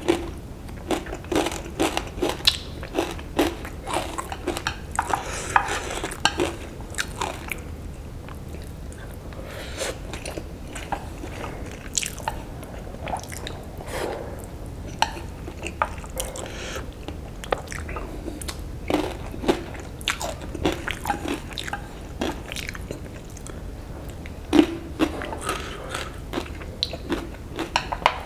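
Close-miked eating of instant noodles: wet chewing and noodle slurping with many irregular mouth clicks and smacks.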